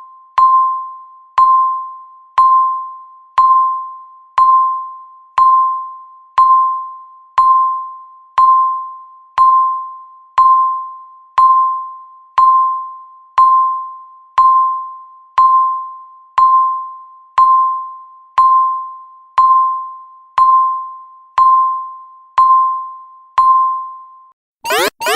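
Countdown timer beeping once a second, each beep a single pure tone that dies away quickly, about 25 in a row. Just before the end the beeps stop and the loud end-of-countdown alarm starts, a fast string of rising sweeps.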